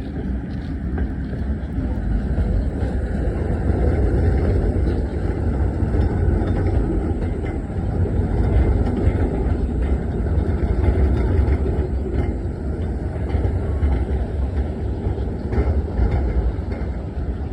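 Tram running on street track: a steady low rumble that swells a little and then eases.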